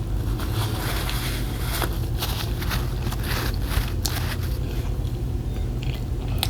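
A person chewing and eating close to the microphone: irregular soft crunches and clicks over a steady low hum.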